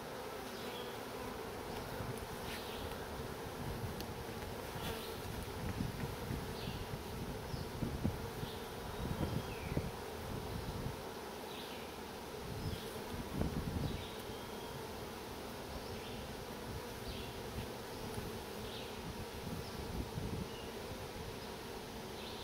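Honey bees buzzing in a steady hum around a frame of bees held over an open nuc box, with a few low rumbles in the middle.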